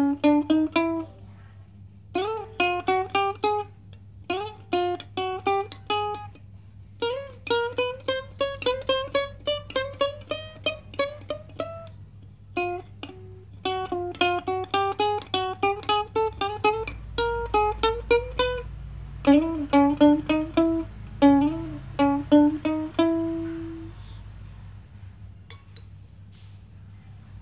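Ukulele played solo: a melody of quick plucked single notes in short phrases with brief pauses, some notes sliding up in pitch. Near the end the playing stops and only a faint low hum remains.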